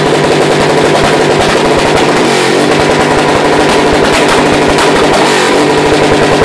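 Cruiser motorcycle engine revved hard and held at high revs, a very loud stream of rapid exhaust pulses with a couple of brief dips in pitch, revved for a sound-level (decibel) measurement in a loudest-exhaust contest.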